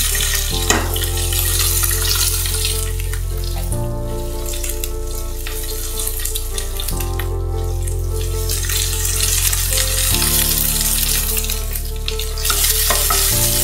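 Wet, boiled elephant apple pieces sizzling steadily in hot mustard oil in a kadai, with a single sharp click just under a second in. Background music of held chords, changing about every three seconds, runs underneath.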